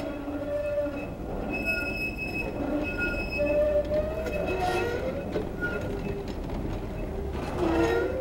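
Vintage Bern tramcars rolling slowly over curved track, their steel wheels squealing in several thin high tones that come and go, with a lower wavering tone, over a steady low rumble.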